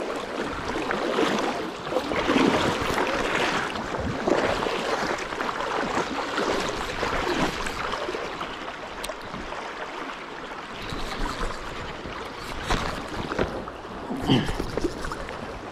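Flowing river water rushing and splashing close by, in an uneven wash of noise that swells and eases.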